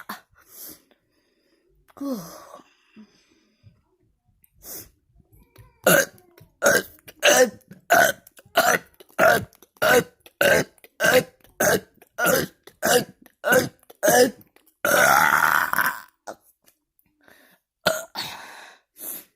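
A person burping: one drawn-out burp about two seconds in, then a fast, even run of about fourteen short burps, roughly one and a half a second, a longer loud burp about fifteen seconds in, and a couple more near the end.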